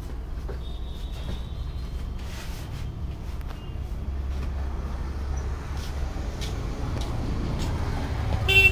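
Steady low rumble of road traffic, with a few faint knocks and clicks and a brief loud pitched sound at the very end.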